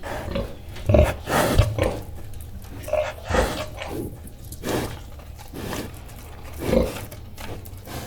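A large pig snorting and chewing: a string of short, breathy snorts and grunts roughly a second apart, the loudest about a second in and near the end, with chewing noises between them.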